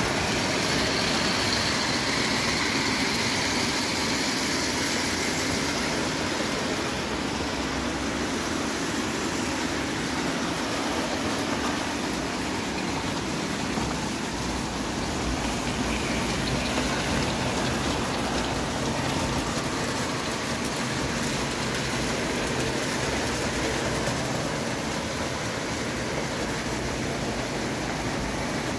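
An O-gauge tinplate freight train, pulled by two spirit-fired Falk live steam locomotives, running steadily on tinplate track. The wheels and wagons make a continuous, even rolling noise.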